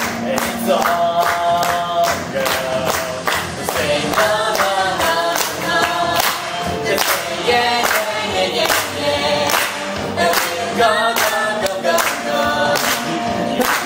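A man and a woman singing a pop love song together over a backing track with a steady beat, about two beats a second.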